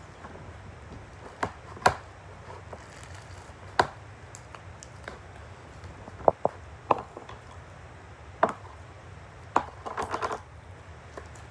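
Plastic slime containers and lids being handled and packed: about ten short, sharp clicks and knocks spread out, with a quick run of clicks near the end.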